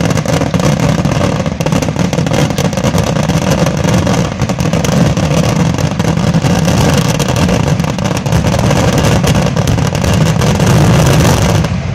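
A dense fireworks barrage: many shells and mines bursting in rapid succession, their bangs and crackles merging into one loud, continuous rumble.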